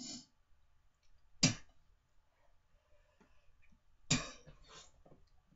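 A young man coughing and clearing his throat in a few short, harsh coughs spaced a second or more apart: at the start, about a second and a half in, and about four seconds in with a weaker one right after. He is reacting to a foul-tasting BeanBoozled jelly bean.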